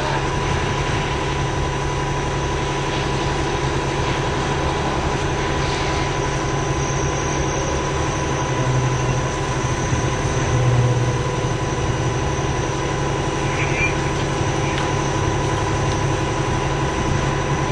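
Steady drone of heavy vehicle engines running at idle, with a constant thin whine above the low hum.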